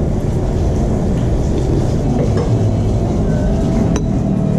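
A steady, loud low rumble throughout, with a single sharp clink of a metal spoon against a bowl about four seconds in.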